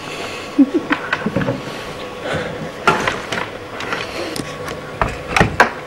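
Computer parts being handled: a string of irregular clicks and knocks, several in quick succession near the end.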